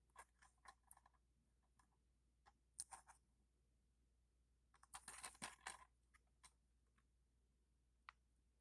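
Faint clicks and rustling of a plastic DVD case being handled, in short clusters: just after the start, near three seconds in, and around five to six seconds in.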